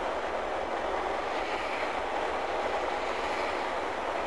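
Steady road and tyre noise of a car cruising at highway speed, heard from inside the cabin.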